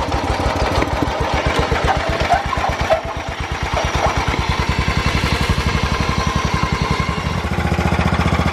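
Off-road riding lawn mower's small engine running with an even, fast firing beat that quickens from about four seconds in and steps up louder near the end, with a few knocks and rattles in the first seconds.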